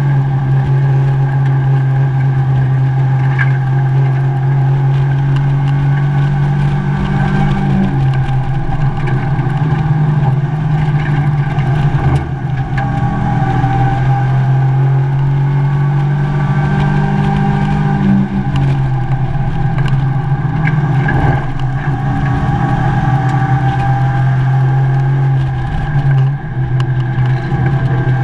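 Mazda MX-5 race car's four-cylinder engine running hard under racing load, heard from inside the caged cabin. Its note steps down and climbs again several times as the car drives through corners, with a brief lift near the end.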